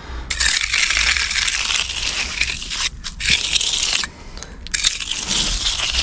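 Steel gauging trowel scraping across the wet surface of a firmed-up concrete slab in gritty back-and-forth strokes, with brief pauses about three and four seconds in. The trowel is taking out tamp marks and working cream up to the surface before the final finish.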